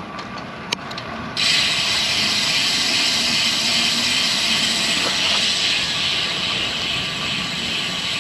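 Steady rushing hiss of wind over the camera microphone and road noise from a bicycle being ridden, jumping sharply louder about a second and a half in.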